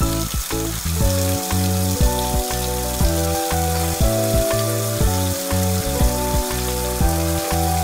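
Background music: a bouncy melody of short held notes that change about twice a second over a light beat, with a steady hiss behind it.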